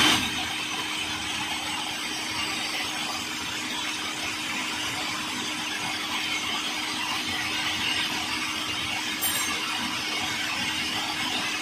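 Electric food processor running steadily at speed, its blade chopping tomato, onion, garlic, coriander and chili, with a constant motor hum under the whirr of the bowl's contents.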